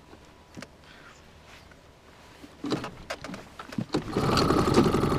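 Warm Parsun 2 hp outboard motor being pull-started: a few short rasping pulls of the start cord about two and a half seconds in, then the engine catches about four seconds in and runs steadily.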